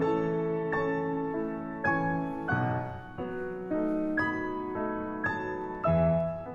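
Background piano music: a gentle melody with a new note or chord struck about every half second, each dying away before the next.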